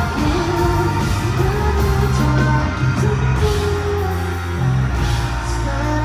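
Live band playing a song with a male lead vocalist singing into a microphone over guitar and a sustained bass line.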